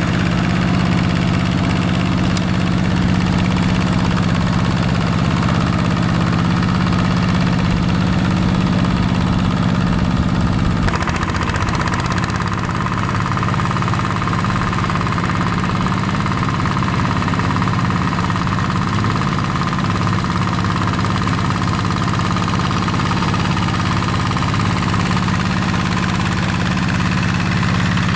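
Yanmar single-cylinder diesel engine of a Quick G1000 two-wheel hand tractor running steadily. Its note shifts a little about eleven seconds in.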